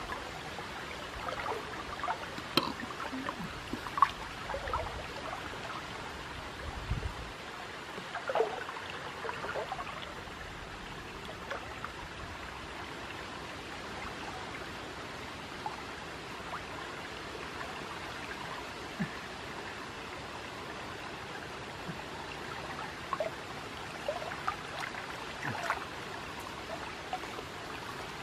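Muddy river water sloshing and trickling around a person wading chest-deep and groping with his arms under the surface. Small splashes stand out now and then over a steady wash of water.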